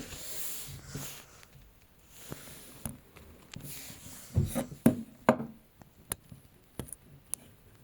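Handling noise indoors: rustling, then a cluster of knocks a little past halfway, and a few sharp single clicks near the end.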